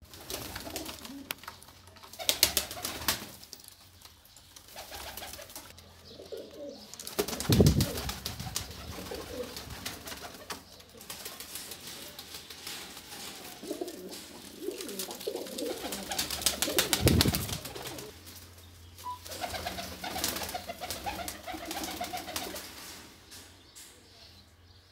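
Domestic pigeons cooing on and off, low wavering calls. Three short, loud rustling bursts break in, the loudest about a third of the way through and again past the middle.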